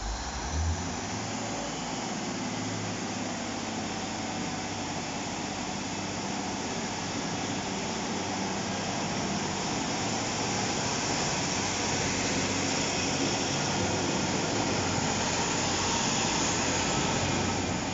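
Two coupled Class 153 diesel railcars pulling away under power, their underfloor Cummins diesel engines opening up about half a second in. The engine and rail noise is steady and grows louder as the carriages pass close by.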